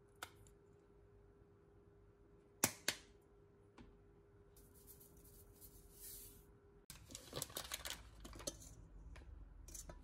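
Two sharp clicks as a spice jar is opened, then a dry, hissing sprinkle of ground spice shaken out over carrots in a pan. After that, crinkling of a foil butter wrapper with small clicks of a knife as a piece of butter is cut off.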